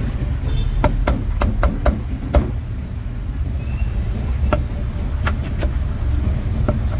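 Meat cleaver chopping a roast duck on a wooden chopping block: a quick run of about six sharp knocks in the first few seconds, then a few scattered strokes, over a steady low rumble of street traffic.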